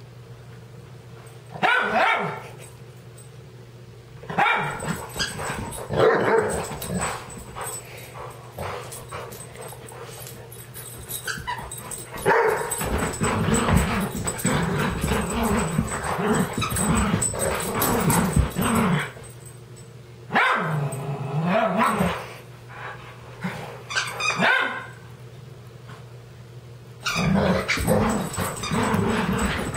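Two dogs, a yellow Labrador and a small Chihuahua–collie cross, play-fighting with growls and barks in bursts of one to several seconds, separated by quieter gaps. The longest run of growling comes in the middle.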